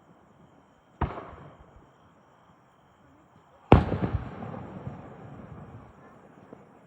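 Two aerial firework shells bursting: one bang about a second in, then a louder one nearly three seconds later, followed by a few quick cracks and a tail that fades away over about two seconds.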